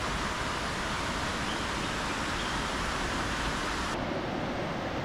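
River water rushing steadily, an even hiss with no distinct events.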